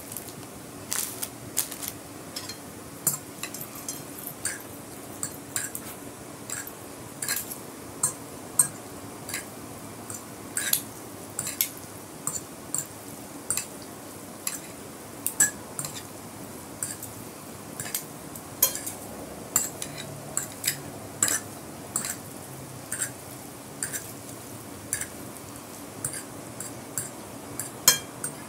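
Metal fork and spoon clinking and scraping against a glass plate while mixing instant noodles, in irregular sharp clinks about one or two a second, over a faint steady hum.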